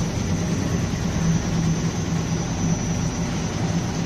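RuidCar suspension shaker running, oscillating the car's rear suspension to provoke body rattles: a steady mechanical drone with a low pulsing hum.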